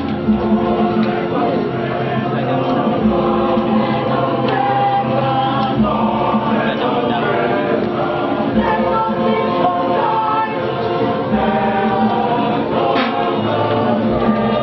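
A choir singing, with a low bass accompaniment that changes note every few seconds.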